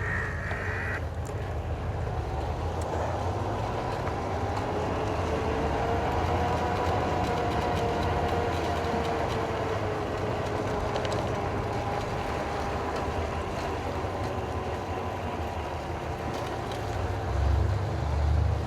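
YOZMA IN10 Pro electric dirt bike under way: a faint electric motor whine that rises and then falls in pitch with speed, over a steady low rumble of wind and road noise, with a few heavier gusts near the end.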